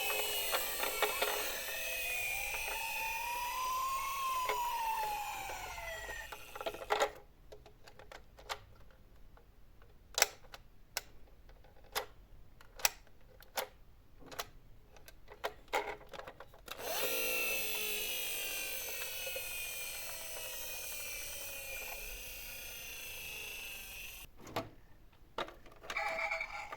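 Ambulance siren sound wailing slowly up and down for several seconds, then about a dozen sharp clicks and knocks. After that a second siren-like sound of sliding tones sounds for several seconds, followed by a few more clicks.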